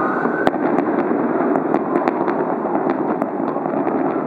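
Fireworks going off at a distance: one sharp bang about half a second in, then a string of crackling pops, over steady background noise.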